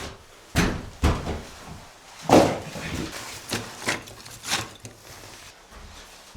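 A run of sharp knocks and clunks, about six over a few seconds, the loudest near the middle.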